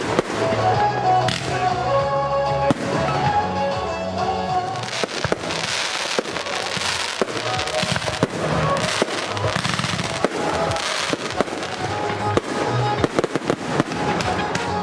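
Fireworks display: shells and rockets going off in a rapid string of sharp bangs, with stretches of dense crackling hiss, over music playing throughout.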